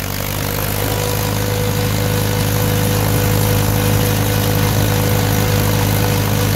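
A 1941 Farmall M's four-cylinder engine running steadily at full throttle, pulling the tractor at about 18 mph in fifth, its direct-drive road gear. It grows a little louder over the first two seconds, then holds even.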